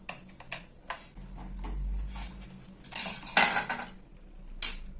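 Metal clinks and clicks from a Wahl Super Taper hair clipper and its screws being handled during disassembly: a few sharp clicks, then a short rattling clatter about three seconds in.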